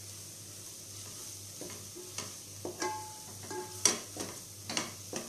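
Sliced onions, chillies and coriander powder sizzling in oil in a pressure cooker while a wooden spatula stirs them, scraping and knocking against the pot several times from about a second and a half in.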